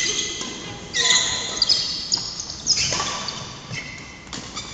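Doubles badminton rally: sharp racket-on-shuttlecock hits at irregular intervals, with shoes squeaking on the wooden court floor, in the echo of a large sports hall.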